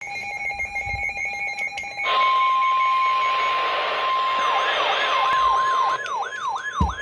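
Emergency Alert System warning tones. A rapidly pulsing tone pattern plays for about two seconds, then a single steady alert tone sounds over hiss. About four seconds in, a fast rising-and-falling siren warble starts and keeps going after the steady tone stops.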